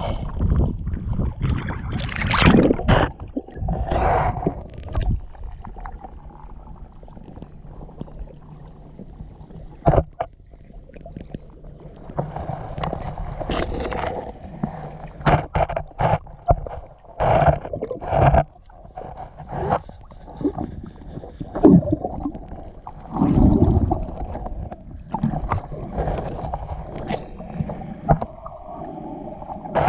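Water sloshing and gurgling around a camera held at and below the surface of shallow river water, heard muffled underwater. Irregular thumps and knocks from the camera being moved and bumped through the water.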